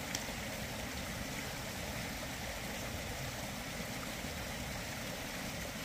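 Small rocky stream running steadily: an even rush of flowing water.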